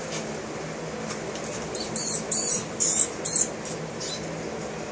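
A mouse squeaking in the jaws of an Asian water monitor: about five sharp, high-pitched squeaks in quick succession, starting about two seconds in and lasting a second and a half.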